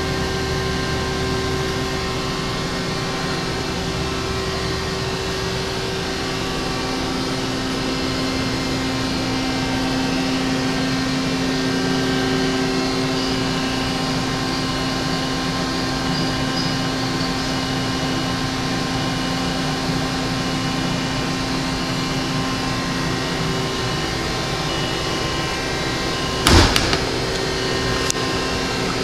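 Mori Seiki SL-150S CNC turning center running: a steady machine hum with several held tones. A lower tone joins about six seconds in, and there is one sharp knock near the end.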